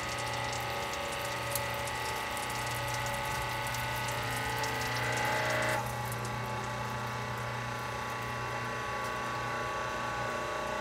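Hydraulic press pump running with a steady hum and whine while the ram squeezes a mass of toilet paper, with light crackling over it. About six seconds in the higher whine cuts off as the ram stops moving, and a lower hum carries on.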